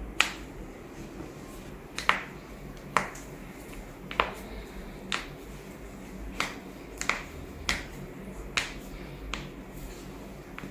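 About a dozen sharp, short clicks at uneven intervals, one every half second to a second, made during hands-on chiropractic manipulation.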